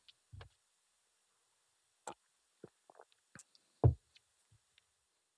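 A few faint, scattered clicks and knocks, with one louder, deeper knock a little under four seconds in.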